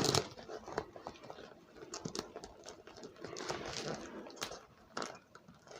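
Handling noise of a strap being attached to a cloth bag: scattered light clicks and short rustles, with the fitting going hard.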